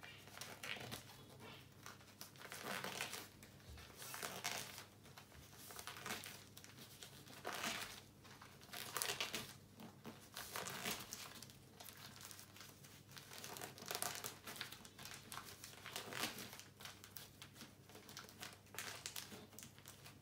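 Thin plastic supermarket-bag strips crinkling as they are folded back and forth into a fan by hand, in irregular bursts every second or two.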